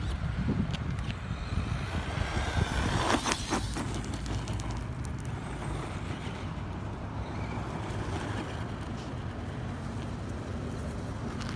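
Radio-controlled off-road truck driving fast over gravel and dirt, its motor revving up and down and its tyres spraying loose stones, loudest about three seconds in. Steady wind rumble on the microphone underneath.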